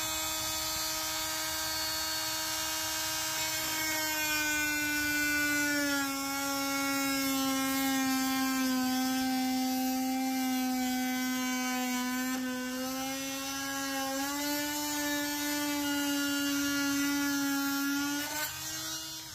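Handheld rotary tool with a cut-off wheel whining steadily as it cuts through a plastic cup-holder console. The pitch drops from about four seconds in as the wheel bites into the plastic, comes back up around fourteen seconds, and the motor stops just before the end.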